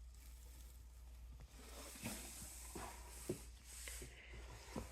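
Faint rustling and a few soft knocks of hands handling things, starting about two seconds in, over a steady low hum.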